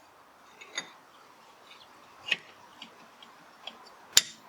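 A few scattered light clicks and taps of tools and metal parts being handled, with one sharper knock near the end.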